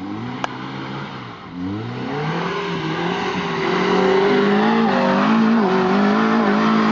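Off-road 4x4's engine revving hard as it attempts a climb. It rises in pitch twice in quick bursts, then holds high and steady at full throttle and grows louder.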